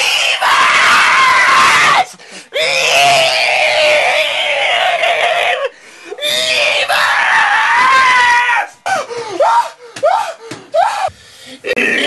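A man screaming: three long, drawn-out screams, then a run of short, sharp cries near the end.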